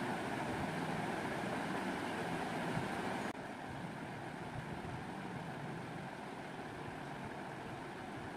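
Steady background hum and hiss with no clear events, dropping suddenly to a lower level about three seconds in.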